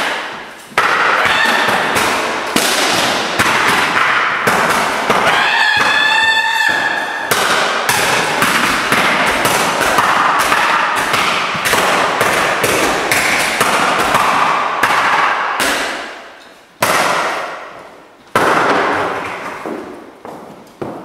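Guitars being smashed with hammers: a dense run of loud crashing, splintering blows. About six seconds in there is a brief wavering pitched wail, and the blows thin out near the end.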